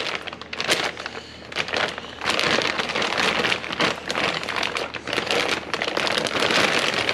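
Clear plastic bag wrapped around a new steering gearbox crinkling and rustling as it is handled, in uneven crackly bursts that grow busier about two seconds in.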